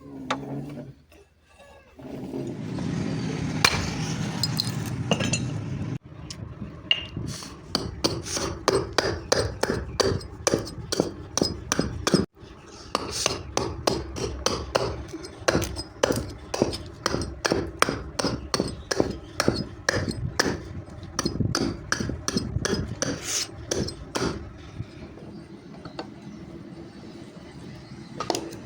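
Hand hammer striking heated steel on an anvil in a long run of quick, ringing blows, about two to three a second, as a hex nut is forged into a knife. The blows are preceded by a few seconds of steady rushing noise and die away near the end.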